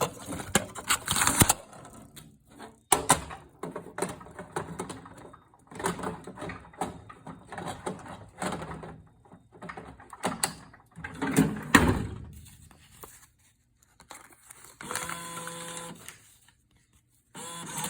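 Bill acceptor of a cigarette vending machine taking in dollar bills: clicks and paper rustling as bills are fed, and a steady motor whir twice as a bill is drawn in, near the end.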